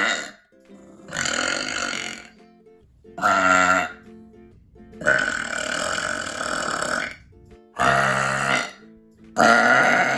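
A woman burping loudly, five separate burps in a row: short ones and one long burp of about two seconds about halfway through. Quiet background music plays between them.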